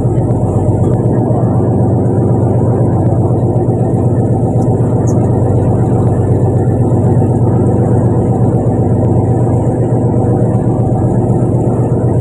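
Fishing boat's engine running steadily at constant speed, a loud, even, low drone.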